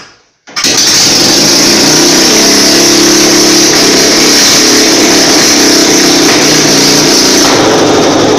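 Freshly rebuilt Royal Enfield Classic UCE single-cylinder engine starting about half a second in, then running loud and steady. The silencer is removed, so it runs on an open exhaust and is louder than stock.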